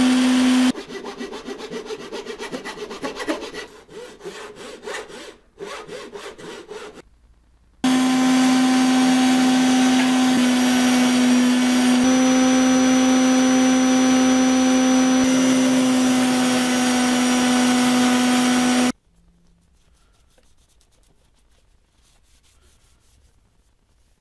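Inverted belt sander running steadily while hardwood is pressed onto its belt, in two stretches: briefly at the start, then for about eleven seconds from about 8 s in before cutting off suddenly. Between the two runs come several seconds of rapid, evenly repeated scratchy rubbing strokes of wood on abrasive. The last few seconds hold only faint rubbing.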